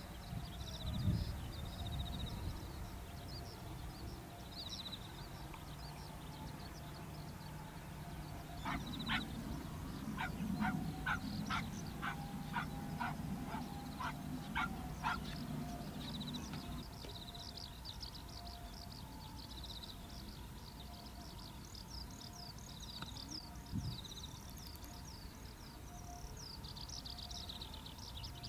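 Outdoor ambience of an open grass field: small birds chirping and insects calling. In the middle comes a run of about a dozen evenly spaced sharp calls or knocks, roughly two every second and a bit, over a low rumble that fades out shortly after.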